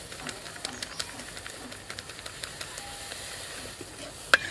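A metal spoon stirring milk powder into hot water in a metal karai, with irregular light clicks of the spoon against the pan and one sharper click near the end.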